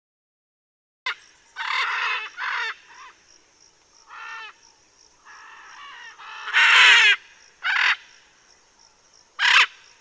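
A parrot squawking: a string of about eight short, harsh calls starting about a second in, the loudest one just before the middle of the second half.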